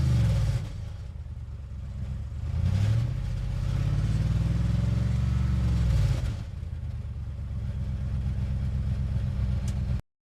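Van engine running and revving: it rises in pitch about two and a half seconds in, holds, drops back to a steady idle around six seconds in, then cuts off abruptly near the end.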